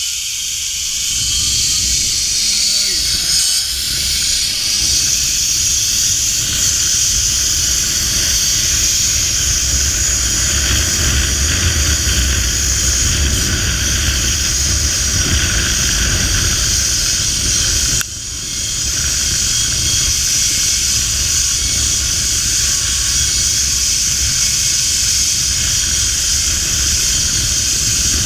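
Zip line trolley's pulleys running along the steel cable with a steady high hiss, mixed with wind rushing over the microphone. It builds over the first couple of seconds and dips suddenly about eighteen seconds in before picking up again.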